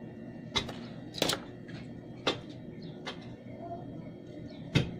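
Sharp clicks and light knocks from wooden craft sticks, card and a hot glue gun being handled on a table, about five in all, the last the loudest, over a steady low hum.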